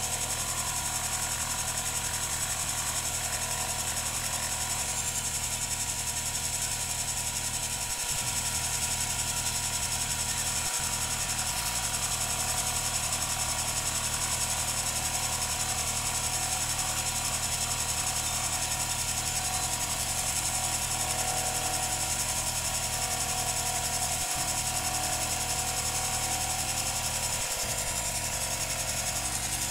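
Metal lathe running steadily under automatic power feed, its tool taking a cleanup cut along the welded receiver of a Page-Lewis Model D .22 rifle. The sound is a continuous, even whirring hum, with the footage sped up fourfold.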